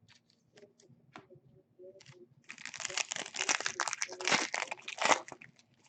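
Plastic wrapper of a trading card pack crinkling as it is torn open and handled, a dense crackle lasting about two and a half seconds from about halfway in, after a few light clicks of card handling.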